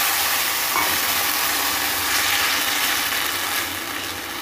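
Wet ground onion, garlic, ginger, chilli and tomato paste sizzling in hot oil in a wok as it is stirred with a wooden spatula: the water in the paste is hitting the hot oil. It is a steady hiss that eases off a little near the end.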